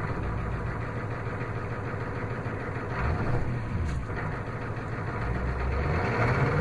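Ford 7.3 IDI V8 diesel engine running at idle after a hard start, its revs rising briefly about three seconds in and climbing again near the end.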